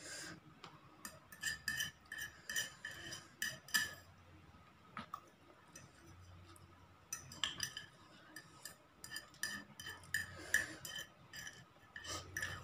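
Metal fork clinking and scraping against a plate in two runs of quick, ringing taps, about a second in and again from about seven seconds, as the last of the noodles are gathered up.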